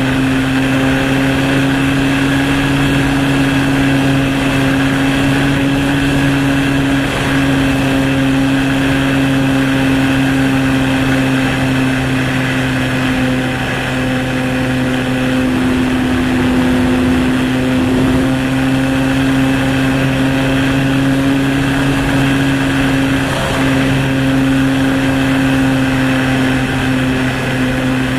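Motor and propeller of a radio-controlled model aircraft heard from its onboard camera, running at a nearly steady pitch with a strong hum, over the rush of wind on the microphone.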